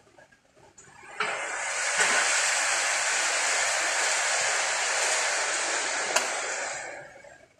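Steady hiss of rushing air, like compressed air escaping, that starts suddenly about a second in, has a short click near the end, and then dies away.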